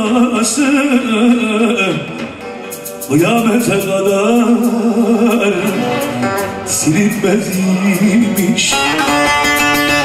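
A man sings with long, wavering held notes to an amplified bağlama, a long-necked Turkish saz. Near the end the singing gives way to a run of quick plucked saz notes.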